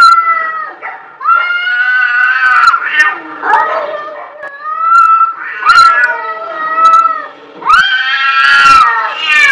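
Cats yowling at each other in a standoff: a series of long, wavering yowls, one after another, with a few short sharp sounds between them.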